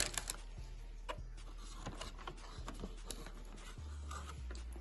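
Paper fast-food bags crinkling and rustling as a hand pulls a chicken nugget out, a run of short crackles that is loudest at the very start.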